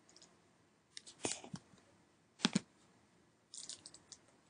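Scattered clicks and taps from working a computer's mouse and keyboard, with a sharp double click about two and a half seconds in and a short run of light taps near the end.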